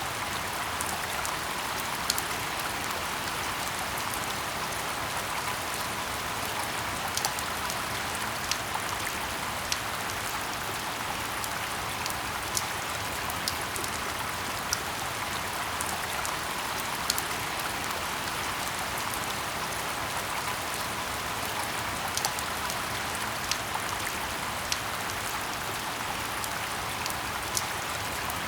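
Steady rain falling in a forest: an even hiss, with sharp ticks of single drops landing close every second or two.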